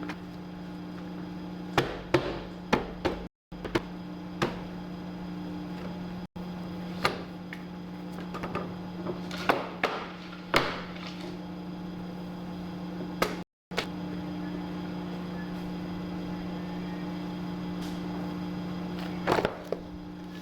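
Electric paper-cutting guillotine running with a steady motor hum, over which come scattered sharp knocks and slaps, a cluster in the first few seconds and a loud pair near the end.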